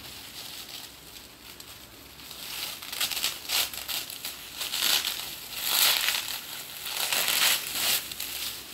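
Plastic bubble wrap crinkling and crackling as it is pulled open and handled, in irregular bouts that grow much louder about a third of the way in.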